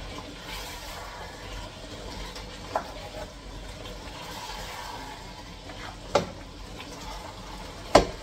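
A spoon stirring a pot of soup over a steady hiss, with three sharp knocks, the loudest near the end.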